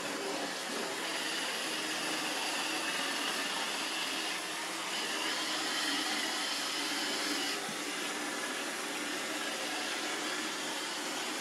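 Roomba robot vacuum cleaner running: a steady motor whir with a high whine over it that shifts in pitch partway through and fades away near the end.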